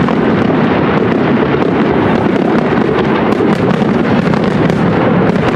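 Dense fireworks barrage: many shells bursting at once and merging into a steady, loud rumble, with fast crackling throughout.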